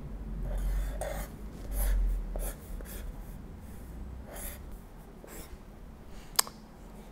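Pen drawing on paper on a clipboard: short scratchy strokes at an uneven pace, with a sharp click about six and a half seconds in. A low handling rumble runs through the first two and a half seconds.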